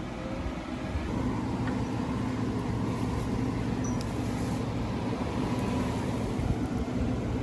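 Truck engine running steadily, a little louder from about a second in.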